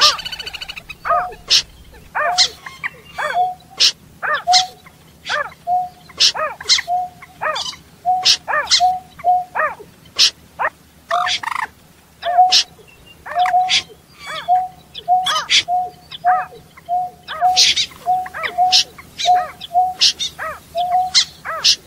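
Caged birds calling: a long run of short, sharp calls repeated about twice a second without a break.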